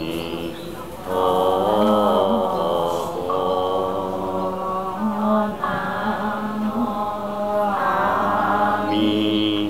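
A group of people chanting a Chinese Buddhist life-release liturgy in unison, long drawn-out syllables on slowly shifting pitches. The chanting dips briefly and swells back in about a second in.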